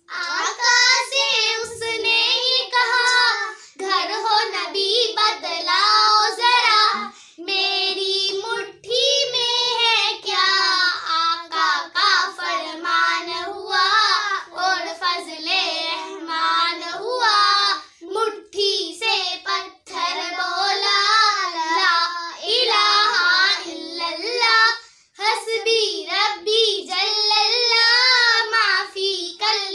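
Children's voices singing an Urdu naat, a devotional song praising the Prophet Muhammad, unaccompanied, in long sung phrases with short breaks between lines.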